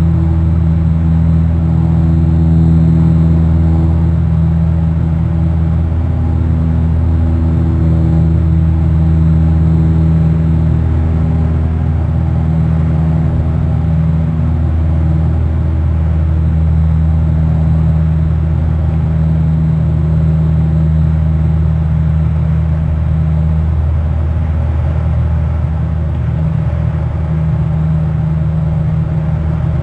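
Loud, steady low rumble with a deep droning hum that wavers slightly.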